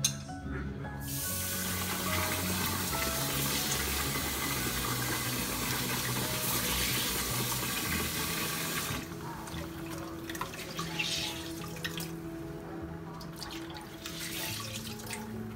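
Kitchen tap running hard into a steel pot in the sink, water splashing over fried tofu cubes for about eight seconds before it is turned off. Afterwards there are small splashes and clinks as a hand swishes the pieces in the pot. Background music with held notes plays under it throughout.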